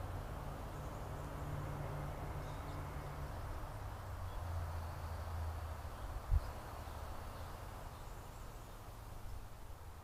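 Steady outdoor background noise as picked up by a trail camera's microphone: a low rumble and soft hiss, with a single short thump about six seconds in.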